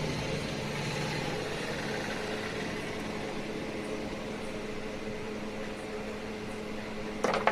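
Steady mechanical hum of a running motor or appliance, with a few light clicks near the end.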